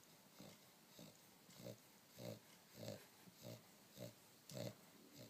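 French Bulldog snoring in its sleep: faint, rhythmic snores, a little under two a second.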